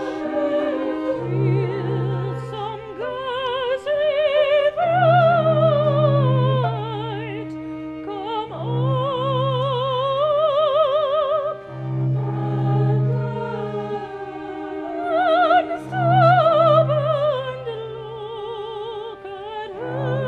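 High operatic singing voice holding long notes with wide vibrato, gliding up and down between phrases, over steady low sustained notes of the accompaniment.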